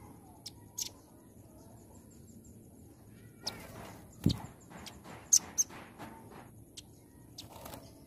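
A caged velvet-fronted nuthatch gives two short, sharp high chirps, then flutters about the cage with wing flaps. There is a loud thump about four seconds in, as it lands or knocks against the cage, followed by a few more sharp chirps.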